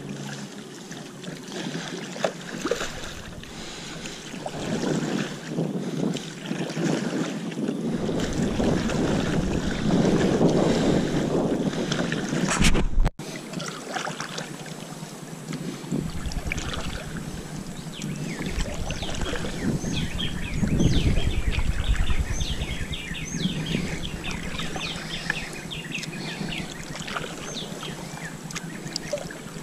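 Stand-up paddle strokes and water washing along a paddleboard, with wind buffeting the microphone. The sound breaks off abruptly about 13 seconds in. After that the wind eases, and many short high ticks of water come through in the second half.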